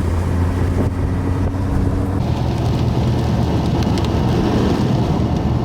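Car engine and road noise heard from inside a moving vehicle. The engine note steps up about two seconds in as the car speeds up.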